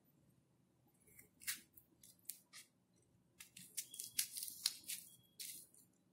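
A small kitchen knife scraping the white pith and seeds out of a cut piece of bitter gourd: a series of short, crisp scrapes and crunches, a few spaced ones at first, then coming quicker from about halfway through.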